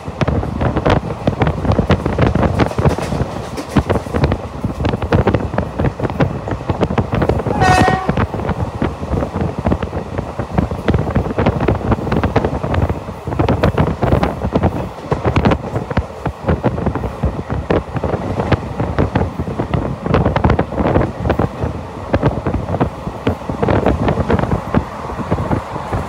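Passenger train running at speed, heard through an open carriage window: a steady rumble with wheels clicking over the rails, and a short horn note about eight seconds in.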